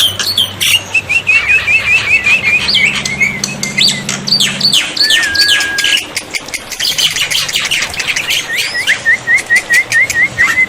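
Black-winged starling (jalak putih) calling: fast runs of short rising chirps, steep sweeping harsh notes and one held whistle about halfway through. A low hum underneath stops about halfway.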